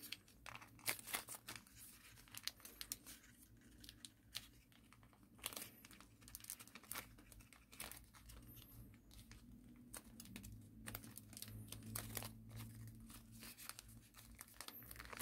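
Faint, intermittent crinkling and rustling of origami paper being folded and creased by hand, with many small sharp clicks and taps scattered throughout.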